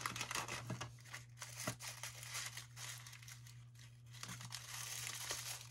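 Clear plastic bag and tissue paper crinkling and rustling in the hands as a small wrapped item is taken out and unwrapped, in irregular crackles.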